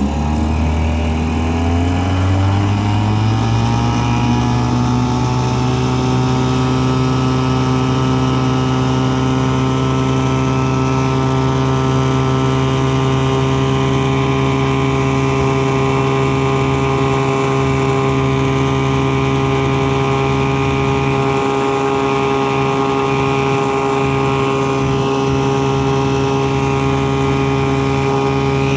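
1958 Evinrude Fisherman 5.5 hp two-cylinder two-stroke outboard motor throttled up. Its pitch rises over the first few seconds, then it runs steadily at speed, driving the boat.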